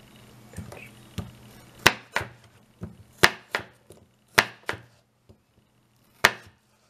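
Kitchen knife slicing Granny Smith apple wedges on a plastic cutting board. About a dozen irregular sharp taps come as the blade cuts through and strikes the board, a few of them much louder than the rest.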